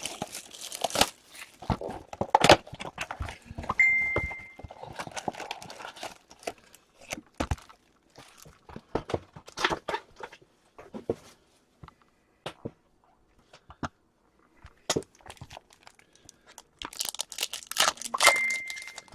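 A hockey card blaster box and its foil card packs being torn open and handled: irregular bursts of tearing and crinkling wrapper with scattered clicks and taps. A short, steady high tone sounds twice, about four seconds in and again near the end.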